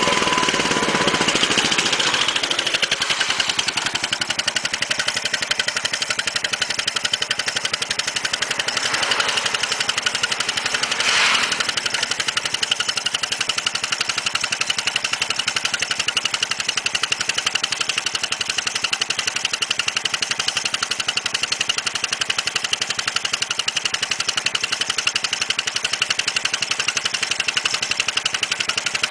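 Royal Enfield Bullet's single-cylinder engine running through a Tail Gunner exhaust, giving a rapid, even beat of exhaust pulses, with a short swell about eleven seconds in.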